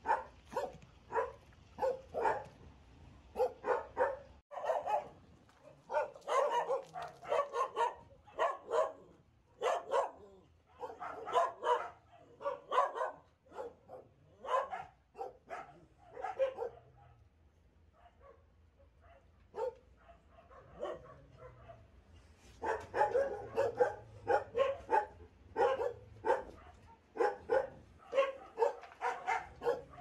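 Dogs barking repeatedly in quick runs of short, sharp barks, with a lull a little past the middle.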